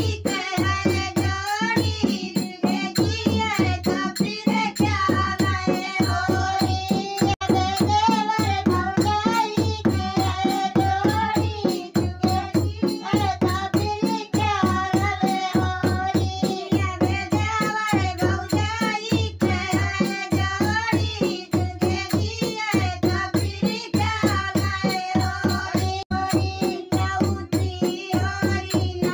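Women singing a Holi folk song (holi geet) together, accompanied by a dholak hand drum played in a steady, repeating beat.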